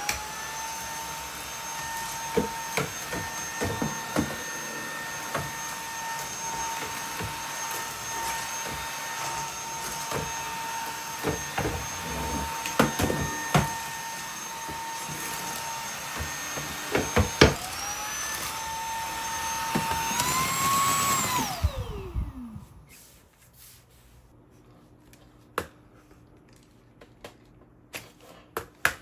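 Cordless stick vacuum cleaner running with a steady high whine, with scattered small clicks and ticks throughout. Its motor cuts out briefly about two-thirds of the way in and comes back at a higher pitch. It is then switched off, its whine falling away and stopping.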